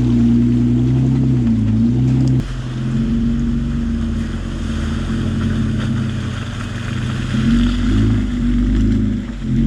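Off-road 4x4 engine running and revving, its pitch rising and falling. The sound breaks off abruptly about two and a half seconds in, then carries on.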